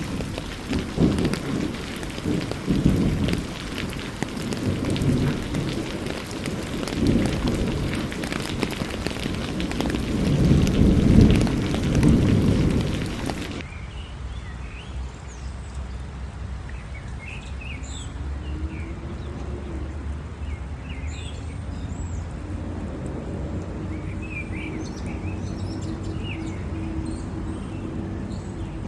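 Heavy rain with deep rumbling surges, loudest about eleven seconds in. About halfway through it cuts off abruptly to a much quieter scene of birds chirping over a low steady hum.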